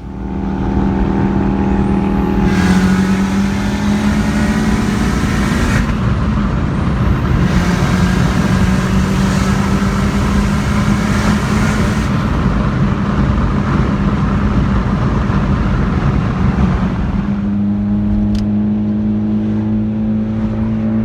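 Audi A4 B5's turbocharged 1.8-litre four-cylinder engine running while the car is driven, a steady engine drone over heavy road and exhaust noise. About 17 seconds in the noise eases and a cleaner, steady engine tone is left.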